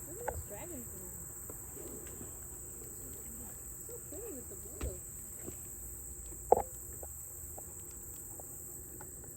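Steady high-pitched chorus of insects, like crickets, running without a break, with faint voices in the first half and a sharp knock about six and a half seconds in.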